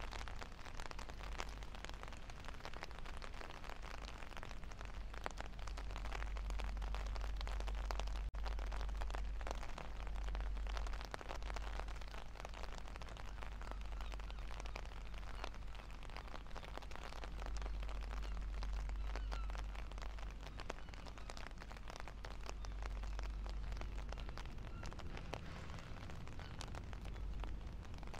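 Wind buffeting the microphone as a low rumble that swells and eases, over a steady patter of rain.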